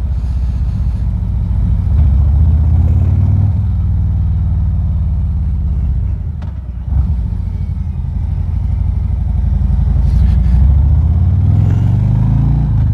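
Harley-Davidson Ultra Limited's V-twin engine running under way, heard through a lapel mic inside a full-face helmet with wind noise. The engine pitch rises twice as the bike accelerates, with a brief dip about six to seven seconds in.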